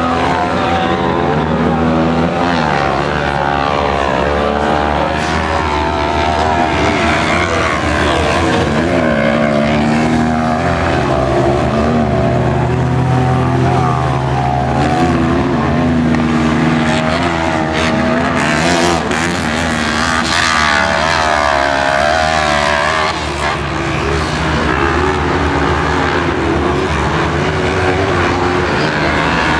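Several 500-class kart cross buggies racing round a dirt track, their engines revving up and down and overlapping as they accelerate, back off and change gear.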